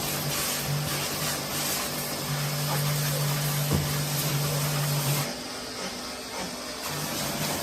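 A machine running with a steady low hum and a hiss, which drop away about five seconds in before the hum picks up again near the end.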